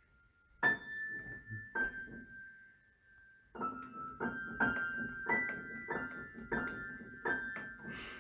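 Upright piano's high keys pressed one at a time by a cat's paws. Two lone notes come first, then a slow, uneven string of notes, one or two a second, each left ringing.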